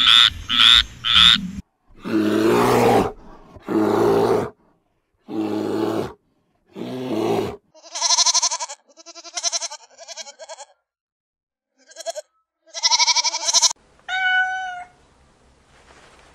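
A frog croaking in quick repeated calls, which stop about a second and a half in. Then come a few harsh, noisy animal calls, followed by a young goat bleating in a string of high calls, and near the end a single cat meow.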